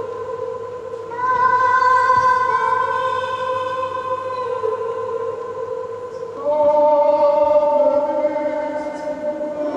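Music of slow, held choir-like chords, changing to a new chord about a second in and again just after six seconds.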